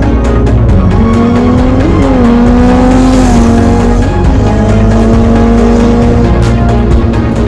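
Honda CBR sport bike's inline-four engine pulling hard at speed, its pitch dropping at gear changes about two and four seconds in, mixed with background music.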